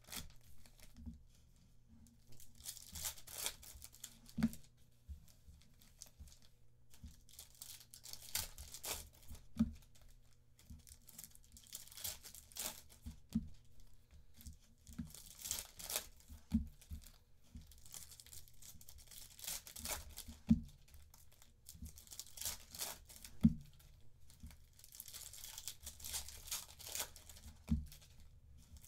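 Foil trading-card packs of 2023 Panini Phoenix football being torn open and crinkled one after another, with a few sharp knocks in between.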